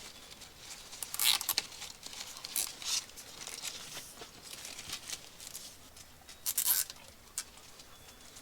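Plastic cable ties being pulled tight around a garden hose pipe: a few short zipping rasps, the loudest about a second in and again about six and a half seconds in.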